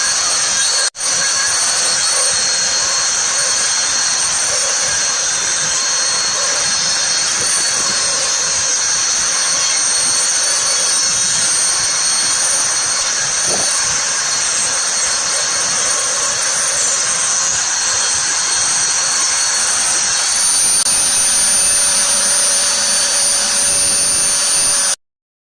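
A Makita router, working as the spindle of a homemade CNC milling machine, runs at high speed with a steady high-pitched whine. It drops out for an instant about a second in and cuts off abruptly near the end.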